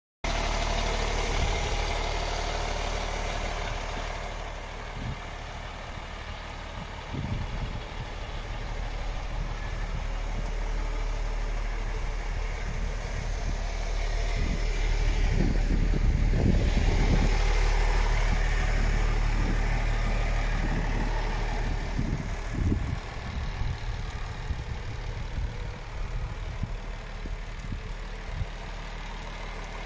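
MAN TGX 18.500's 12.4-litre straight-six diesel idling steadily, growing louder about halfway through, with a few irregular low thumps on the microphone.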